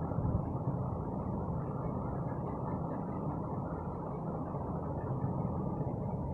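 Steady low rumble of background noise picked up by a phone's microphone, with no speech.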